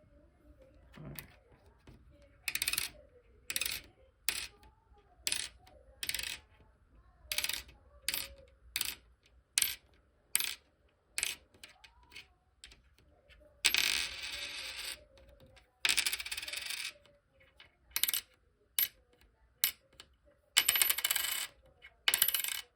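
Pennies dropped again and again onto a hard surface, about twenty landings, each a short bright ping. Three times a coin rings and rattles on for about a second before settling. It is a sound test for composition: a bright ping suggests a brass cent, while copper sounds duller.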